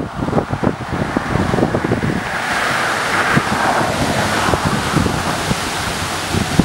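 Wind buffeting the microphone: an uneven, gusty rumble, with a steadier hiss that swells in the middle.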